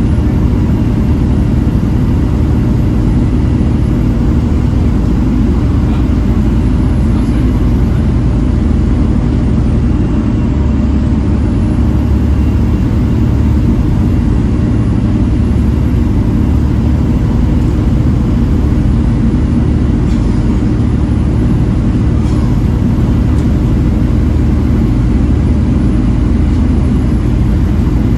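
Volvo B7TL double-decker bus running along the road, its diesel engine and driveline giving a steady, unbroken drone.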